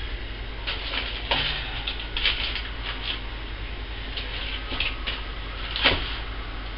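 Scattered light knocks and clatters of small items being handled, half a dozen over several seconds with the sharpest near the end, over a steady low hum.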